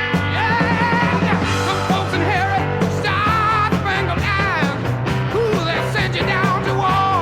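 Rock music with a wavering, bending lead melody over a steady bass line.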